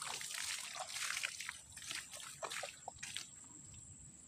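Water splashing and trickling with scattered drips, dying away after about three seconds.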